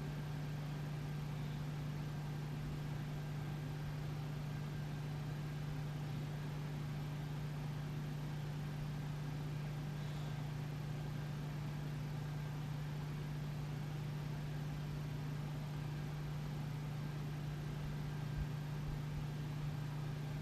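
Steady low electrical or appliance hum with a faint even hiss: quiet house room tone, unchanging throughout.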